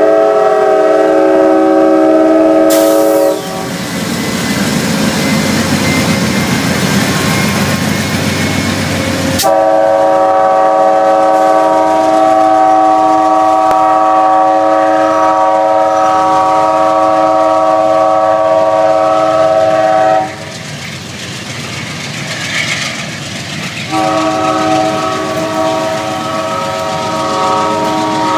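Locomotive multi-chime air horn sounding a steady chord of several notes, broken by a few seconds of passing-train rumble. The horn then sounds again in a long blast of about ten seconds, pauses, and comes back near the end.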